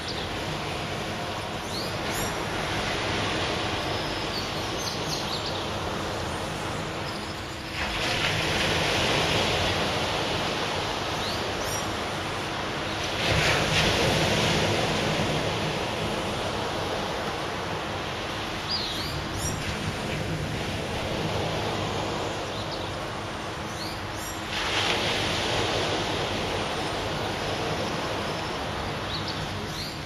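Sea surf breaking on a sandy beach: a steady wash that swells louder three times as bigger waves break and run up the shore.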